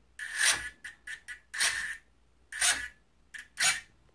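RC glider elevator servo whirring in a series of short bursts, stopping and starting, as it swings the all-moving stabilizer back and forth through its high-rate throw.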